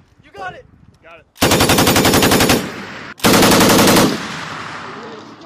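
M240B 7.62 mm belt-fed machine gun firing two bursts, each about a second long: the first starts about a second and a half in, the second about three seconds in. Each burst leaves a fading echo behind it.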